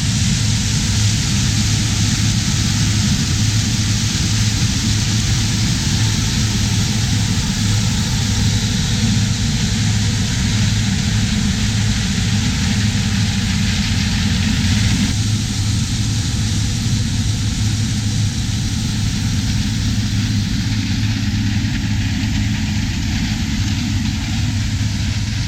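Large diesel engine of harvest machinery running steadily, with a strong low hum under a wide mechanical whir; the higher part of the sound shifts slightly about fifteen seconds in.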